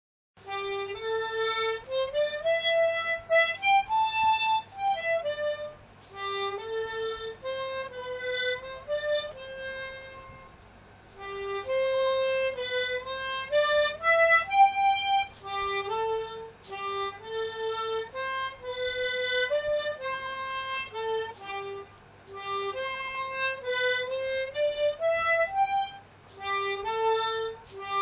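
Harmonica playing a soft, self-composed melody, one note at a time in phrases, with a short pause about ten seconds in.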